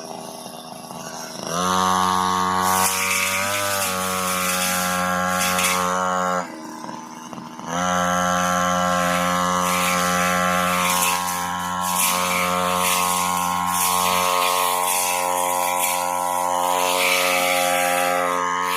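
Small brush cutter engine revved from idle to high speed about a second and a half in, dropping back to idle for about a second midway, then revved up again and held at high speed while cutting napier grass.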